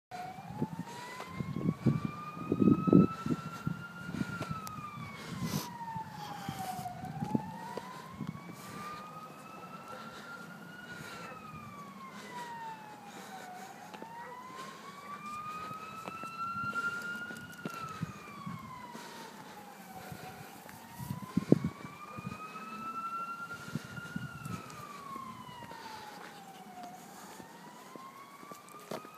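A siren wailing in slow cycles, each rising over about four seconds and falling over about three, repeating through the whole stretch. A few low bumps close by, loudest about three seconds in and again about two-thirds of the way through.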